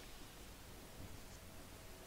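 Near silence: faint room tone, a light hiss with a steady low hum.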